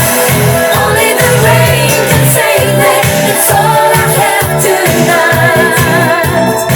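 Pop song playing: sung vocals with vibrato over a steady, pulsing bass beat.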